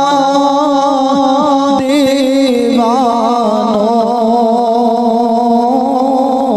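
A man singing an Urdu naat into a microphone, drawing out long held notes that waver up and down in ornamented turns.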